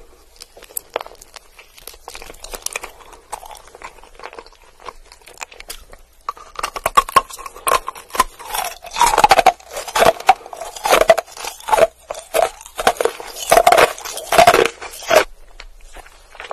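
Close-miked ASMR eating of hard blue candy: small clicks and chewing of a bitten gumball, then from about six seconds in a run of loud crunches as rock candy crystals are bitten and chewed.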